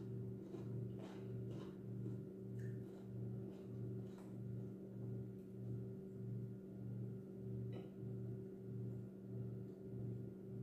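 A steady low hum made of several held tones, its lowest tone throbbing about twice a second, with a few faint clicks from eating at a plate.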